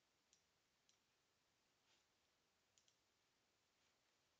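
Near silence with a few faint, sharp computer clicks, about five of them, including a quick pair near three seconds in.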